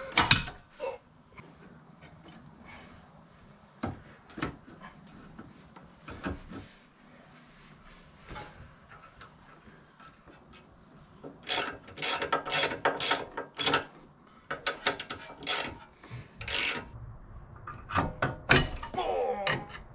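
Hand tools clicking and knocking on metal at a truck's front axle and hub: a few scattered clicks at first, then quick runs of rapid clicks over the second half, as the CV axle is refitted to the front differential.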